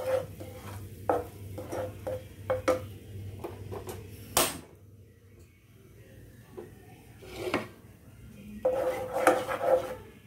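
A wooden spatula scraping and knocking against a nonstick saucepan while stirring thick ground masala paste as it is sautéd, until the oil separates and the raw smell goes. The strokes are irregular, with a sharp knock about four seconds in, a quieter stretch after it, and a busier run of scraping near the end.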